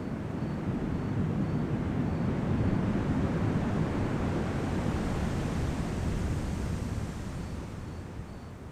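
Ocean surf: one wave's rush of water that swells over the first few seconds and then slowly fades away.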